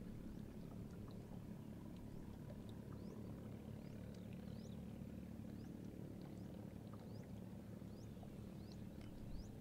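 A distant engine hums steadily and low, while a bird gives short rising chirps again and again from about two and a half seconds in.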